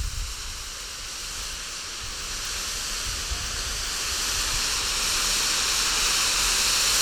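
Boomer Desert Smoke firework burning, giving off a steady hiss that grows gradually louder, with low wind rumble on the microphone.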